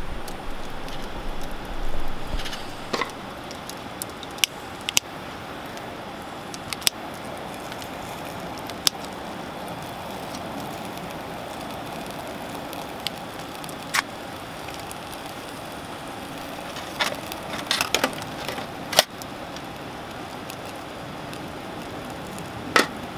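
Wood campfire crackling, with scattered sharp pops over a steady hiss.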